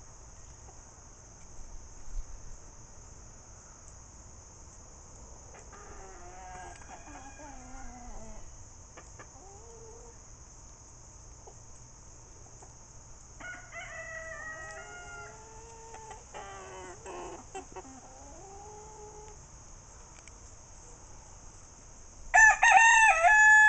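Roosters crowing: fainter crows around the middle, then a much louder crow near the end.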